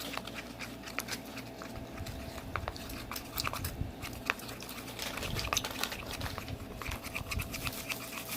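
Slime mixture of glue and water being worked by hand in a bowl, with many small irregular clicks and wet, sticky squishing.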